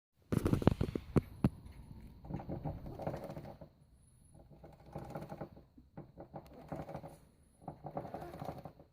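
Motorcycle drive chain running over-tightened on worn sprockets, making a rough, rattling grind that swells and fades in repeated surges. This abnormal noise is the sign of worn sprockets forced to take a too-tight chain. A few sharp knocks come in the first second or so.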